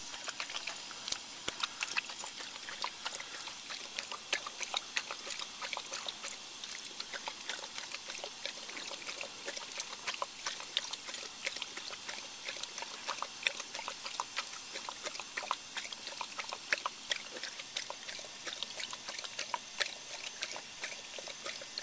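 A Vizsla drinking from the running jet of a drinking fountain: water splashing into the metal basin with a steady hiss, broken by many quick, irregular lapping and slurping clicks throughout.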